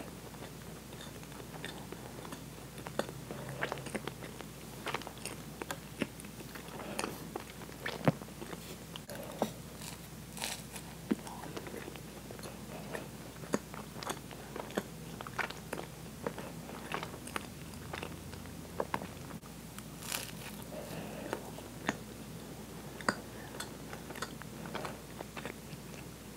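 Close-miked chewing with frequent sharp, wet mouth clicks and smacks, some of it a person biting into and eating a soft Twinkie sponge cake.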